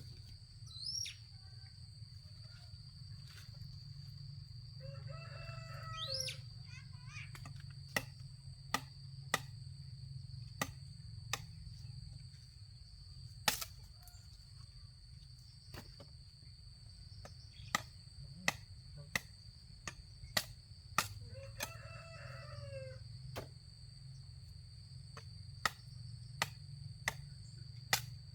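A rooster crowing twice, each crow about a second and a half long, over a steady high insect buzz. Sharp knocks sound irregularly throughout and are the loudest thing heard.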